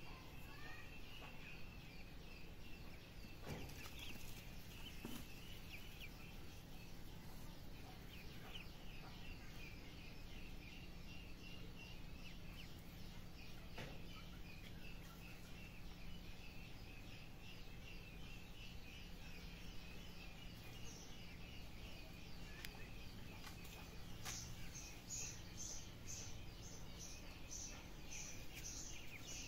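Ducklings peeping: a steady stream of short, high peeps, several a second. In the last few seconds a quicker, higher chirping joins in.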